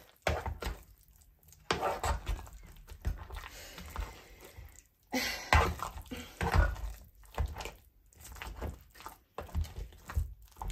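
A metal spoon stirring and folding thick mashed potatoes in a saucepan, hand-mixed rather than with a mixer: irregular soft squelches and scrapes with occasional dull knocks of the spoon against the pan.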